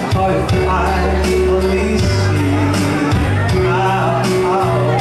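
Live dance music amplified through PA speakers, from a keyboard and backing track: a steady drum beat over held bass notes, with a wavering melody line on top.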